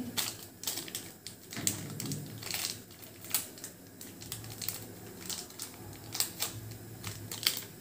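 A green tea bag's paper sachet being unwrapped by hand: irregular crinkling and crackling of the wrapper, with many sharp little clicks.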